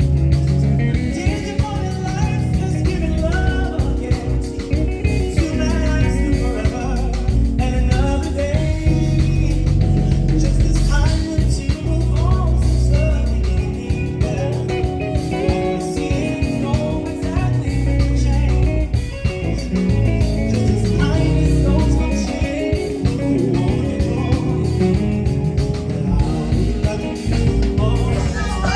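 Live band music during a sound check: guitar, heavy bass and drum kit playing steadily, with some singing.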